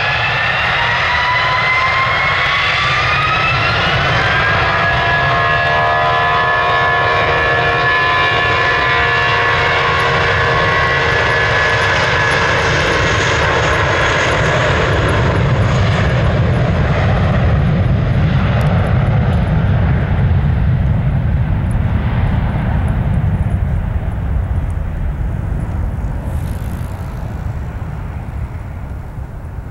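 Airbus A320's two IAE V2500 turbofan engines spooling up to takeoff power, a whine rising in pitch over the first four seconds and then holding steady. A deep rumble grows loudest as the jet rolls past partway through, then fades as it accelerates away.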